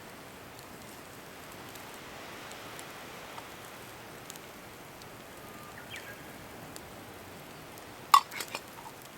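Campfire crackling with a soft, steady hiss and scattered small ticks, then a sharp clink about eight seconds in, followed quickly by two lighter clicks.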